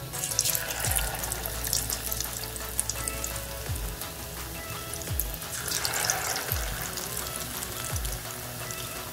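Batter-coated baby corn deep-frying in hot oil in a steel pan: a steady sizzle of bubbling oil that flares up as a fresh piece goes in at the start, and again about six seconds in as another is added.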